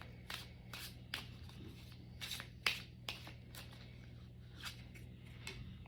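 Oracle cards being shuffled and drawn by hand: a scatter of short, soft card swishes and taps at an irregular pace, over a faint low hum.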